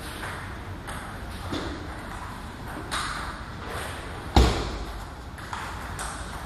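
Table tennis ball being hit back and forth: sharp pings of ball off bat and table, roughly one every second, with one heavier, louder knock about four seconds in, echoing in a large hall.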